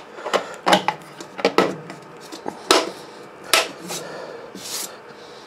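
3D-printed plastic T-slot cover strips pressed by hand into the slots of an aluminium CNC mill table: a series of irregular clicks and knocks as they snap in, then a short rubbing swish near the end.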